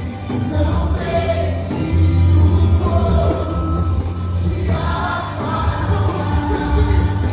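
Music with singing voices, choir-like, over a strong steady bass.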